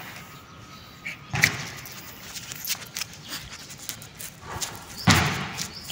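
A few scattered thuds and knocks, the loudest about a second and a half in and again near the end, over a quiet outdoor background.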